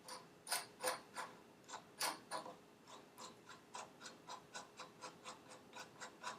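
Light metallic clicking as the scooter's headset bearing nut and bearing are worked off the fork steerer by hand: a few louder irregular clicks at first, then a lighter run of about three to four clicks a second.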